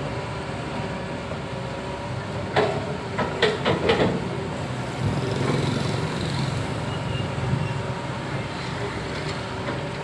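Cat excavator's diesel engine running steadily while digging. A quick run of sharp knocks comes between about two and a half and four seconds in.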